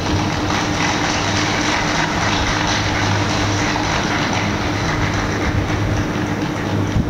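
Steady rumbling and rattling with a constant low hum: a newly built bulk carrier's hull sliding down the launching ways.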